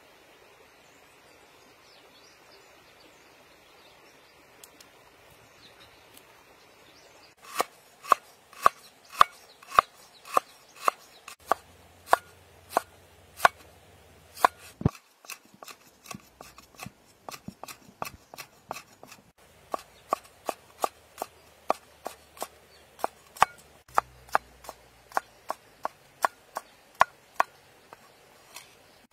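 Cleaver chopping on a wooden cutting board, slicing fresh roots and lemongrass: sharp, regular knocks about two a second, starting about seven seconds in after a faint steady hiss.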